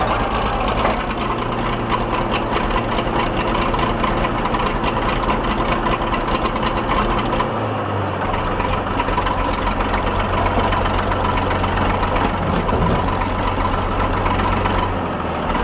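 The 1953 International Harvester TD20 bulldozer's 750-cubic-inch straight-six engine running steadily at idle. Its note changes about halfway through.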